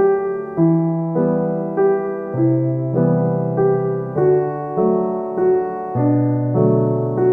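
Background music: a gentle electric-piano melody, a new note or chord about every 0.6 seconds.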